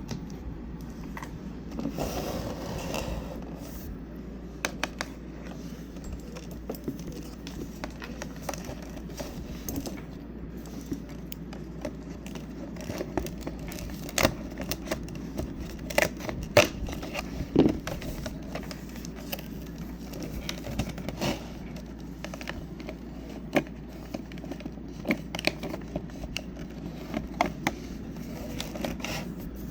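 Cardboard and plastic packaging being handled while a calendar compartment is opened and its small figure unwrapped: scattered clicks, taps and rustles, busiest about halfway through.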